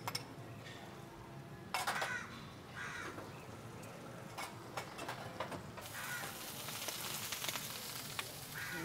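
Sliced red onion frying in butter in a hot pan, a soft sizzle that grows much louder about six seconds in. A crow caws a few times in the first half.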